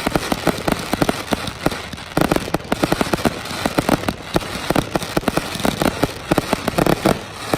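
Fireworks display: a dense, continuous run of rapid bangs and crackles from exploding aerial shells.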